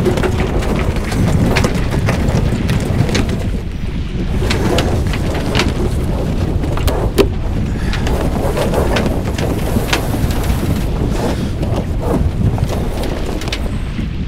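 Wind buffeting the microphone and water rushing along the hull of a sailing yacht under way in a fresh breeze, with scattered knocks and clicks throughout, the sharpest about seven seconds in.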